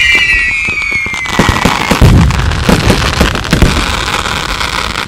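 Aerial fireworks display: several whistles falling in pitch fade out about a second and a half in, then a string of bangs and crackles from bursting shells.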